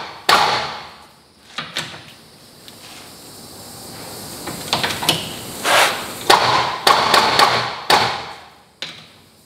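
Metal clicks and clunks of a valve spring checker being set on the rocker arms of a drag-race engine and levered down on the springs, in several separate bursts, as each spring's pressure is checked.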